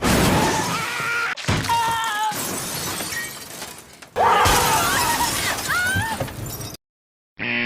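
Glass shattering sound effects: a loud crash from the start, then three or four more breaking crashes one after another, with shards ringing as they fall. It cuts off about a second before the end.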